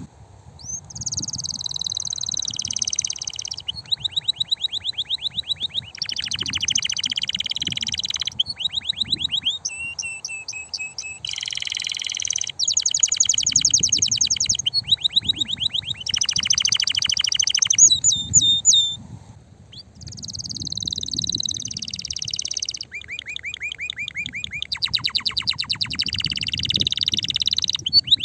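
Male domestic canary singing a long song of rapid trills, each a fast run of repeated high notes that changes to a new trill every second or two, with one brief pause about two-thirds of the way through.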